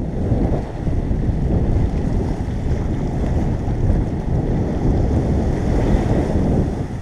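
Wind buffeting the microphone in a steady dense rumble, with sea surf behind it.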